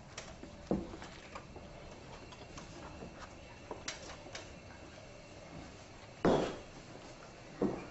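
Light handling knocks and clicks of equipment against a hospital bed frame: a few short ones spread out, the loudest about six seconds in, over quiet room tone.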